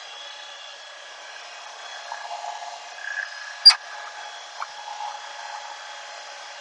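New Holland Workmaster 25S subcompact tractor's diesel engine running steadily at high throttle while the loader or backhoe is worked, with a sharp clank a little past halfway and a few lighter knocks.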